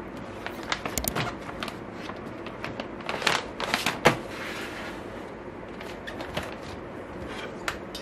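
Papers in clear plastic document sleeves rustling and crinkling as they are handled and leafed through, in a few irregular bursts, with a sharper click about four seconds in and a few light ticks after.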